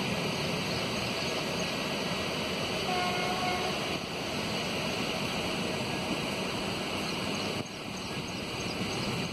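Running noise of a moving Indian Railways passenger coach, heard from its open doorway: steady rumble and hiss of wheels on rails and rushing air. A brief faint tone sounds about three seconds in.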